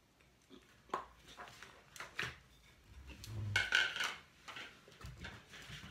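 A few light knocks and handling noises from a plastic plate and paper being moved on a tabletop, loudest a little past the middle.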